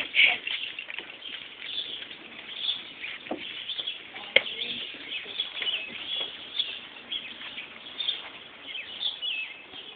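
Small birds chirping in a scattered series of short calls, with one sharp click a little past four seconds in.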